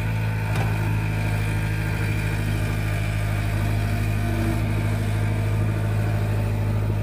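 Diesel engine of a CAT crawler excavator running at a steady, even pitch with a strong low hum while the machine digs wet mud.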